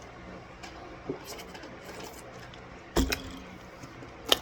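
Quiet clicks and handling noises, with one sharp knock about three seconds in and another click near the end, over a steady low hum.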